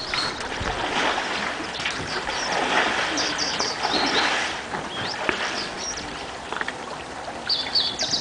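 Outdoor field-recording ambience: a rough, uneven rustling haze, with short high bird chirps in two brief runs, about three seconds in and again near the end.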